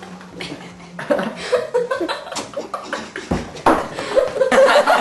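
Chuckling and laughter mixed with indistinct talk, loudest near the end.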